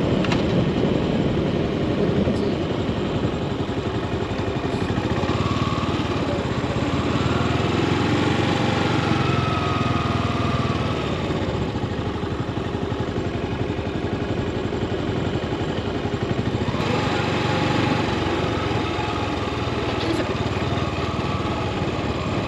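Yamaha SR400's single-cylinder four-stroke engine running steadily, a rapid low pulse of firing strokes.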